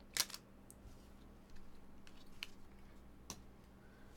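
A stack of chrome trading cards handled and flicked through by hand: a sharp click just after the start, then a few faint ticks as cards are slid to the back of the stack, over a faint steady hum.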